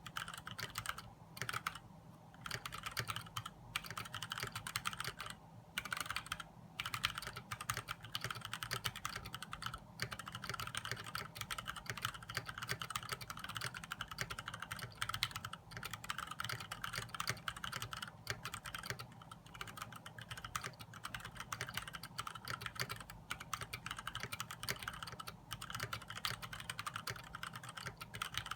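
Continuous fast typing on a mechanical keyboard with Gateron Brown tactile switches and DSA-profile plastic keycaps: a dense stream of key clacks with a few brief pauses.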